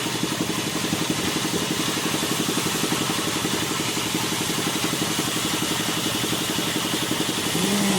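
A machine running steadily with a rapid, even pulsing, about ten pulses a second, with a short tone near the end.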